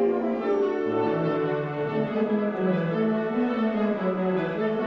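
Symphonic wind band, woodwinds and brass together, playing held notes with a melody moving through the lower and middle voices.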